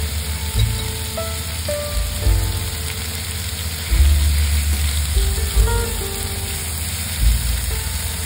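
Chicken pieces and sliced onion sizzling in melted butter in a nonstick frying pan, stirred with a silicone spatula; a steady frying hiss. Background music with a bass line plays over it.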